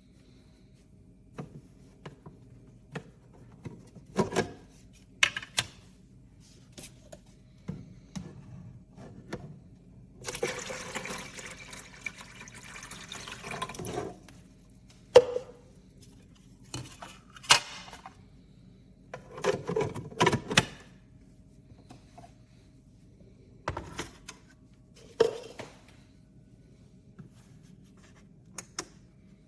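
Water pouring or running for about four seconds, near the middle, with sharp clicks and knocks of handling before and after.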